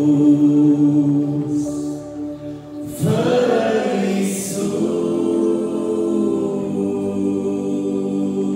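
Three men singing in close harmony through microphones, holding long chords; one chord fades about a second and a half in and a new one starts about three seconds in.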